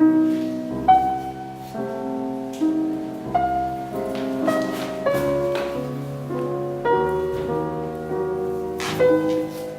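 Instrumental background music led by piano, with gentle chords and melody notes changing about once a second.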